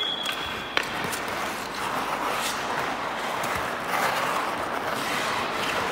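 Ice hockey skate blades scraping and carving on rink ice, a steady hiss that swells as a player cuts hard around the nets. A single sharp click sounds just under a second in.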